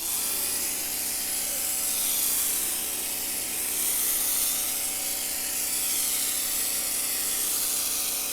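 Electric pressure washer running, its motor and pump giving a steady hum under the hiss of water and detergent spraying from the foam bottle attachment on the wand.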